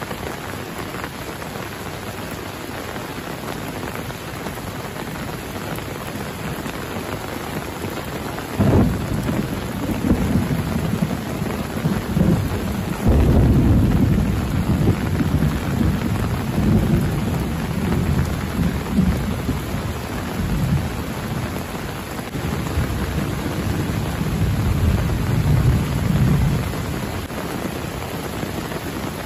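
Heavy rain falling steadily, with thunder: a rumble breaks in suddenly about nine seconds in, a louder peal comes about thirteen seconds in, and rolling rumbles come and go until near the end.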